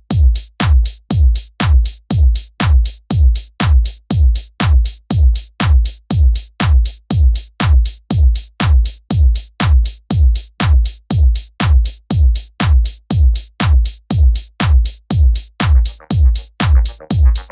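Electronic background music driven by a heavy drum-machine kick on every beat, a little over two beats a second. Another layer joins the beat near the end.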